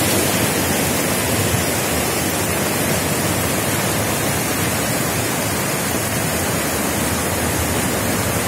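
Swollen torrent in flood, muddy water rushing and churning through a concrete channel in a steady, unbroken wash of noise. The channel is near to overflowing because its bed has not been cleared.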